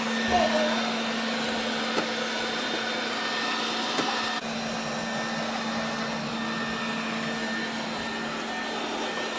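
Neatsvor X600 Pro robot vacuum cleaner running with a steady motor hum and whir, with a couple of light clicks about two and four seconds in.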